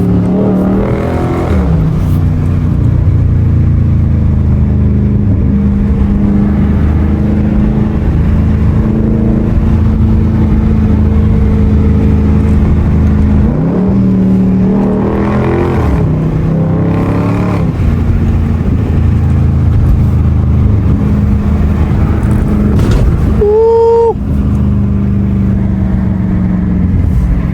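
Dodge Charger Scat Pack's 6.4-litre 392 HEMI V8 with a mid-muffler delete, heard with the window down: the engine pulls hard with its pitch rising at the start and again about halfway through, and otherwise drones steadily at cruise. A brief steady tone sounds about three-quarters of the way through.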